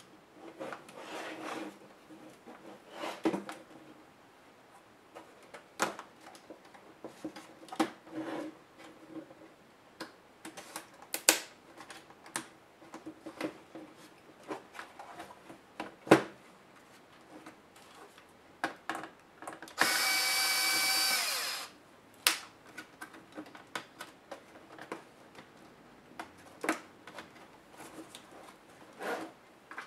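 Plastic clicks and knocks from a laptop's case and small tools being handled on a work mat, with a sharp knock near the middle. About two-thirds of the way through, a small electric screwdriver whirs steadily for under two seconds, turning out a screw from the laptop's bottom case.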